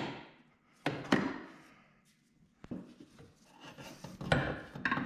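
Wrench and steel Kafer bars clanking as the bars' bolts are undone: several sharp metal knocks with some scraping between them.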